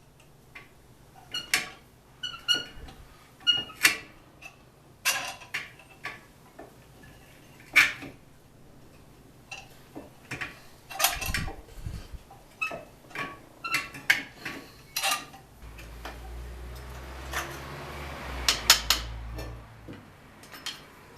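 Metal parts and hand tools clinking and clanking as new front brake pads and the caliper of a GMC Suburban's disc brake are fitted back over the rotor. There are irregular sharp clinks every second or so, and about three-quarters of the way through a low hum with a rushing noise runs for about four seconds.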